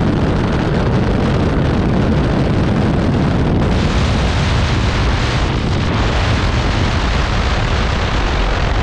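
Heavy wind buffeting on the microphone of a Yamaha R15 V3 sport motorcycle riding at highway speed, a loud steady rush with no clear engine note above it.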